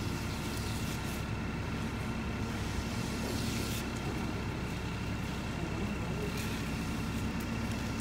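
An engine running steadily at idle: a constant low hum with a thin, unchanging whine above it.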